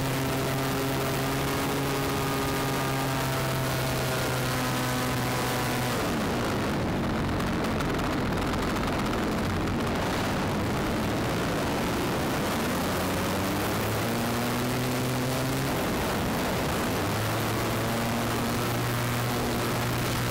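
Extra 300 aerobatic plane's six-cylinder Lycoming engine and propeller heard from on board, with rushing wind over the microphone. The steady engine drone breaks up about six seconds in and runs lower and unsteady through the middle as power changes during the manoeuvres, then settles back to a steady note near the end.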